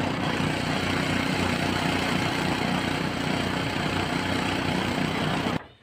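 Vehicle engine running steadily while under way across snow, with wind rushing hard on the microphone. It cuts off suddenly near the end.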